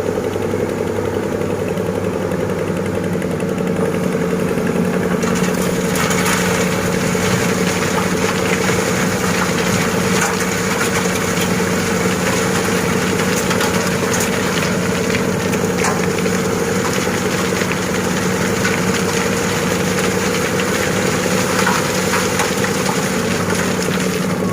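Heavy diesel engine of an excavator or dump truck running steadily. About five seconds in, a rougher scraping noise with scattered clicks and rattles joins it.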